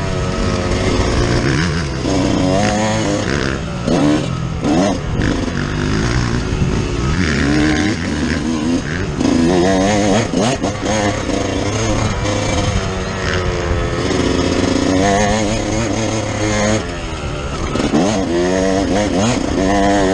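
2005 Kawasaki KX125's single-cylinder two-stroke engine being ridden hard on a motocross track, its pitch rising and falling again and again as the throttle is opened and closed through the turns, heard from the rider's onboard camera.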